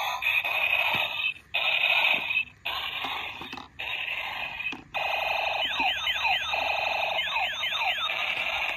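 Electronic sound effects from battery-powered toy weapons: buzzy alarm-like tones in short bursts with brief breaks, then from about five seconds in a run of quick falling laser-like zaps.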